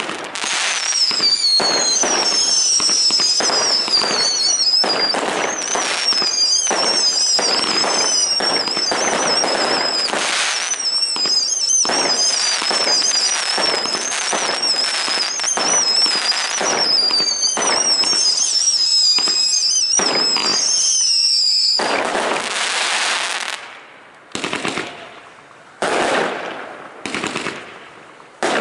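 Fireworks display: a dense, continuous barrage of bursts and crackle with several high warbling whistles overhead. About 22 seconds in it thins out to a few separate bangs about a second apart, each trailing off.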